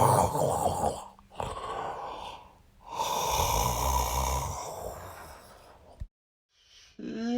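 A man yawning loudly and at length, with long breathy yawns and a low groaning voice underneath: one ends about a second in, and another starts about three seconds in and slowly fades. Near the end a drawn-out voiced sound begins, typical of trying to talk through a yawn.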